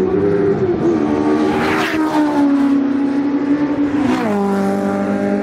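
Race cars, a Mitjet 1300 among them, passing at speed with engines running hard. The engine pitch dips about half a second in and drops sharply as a car goes by around four seconds in.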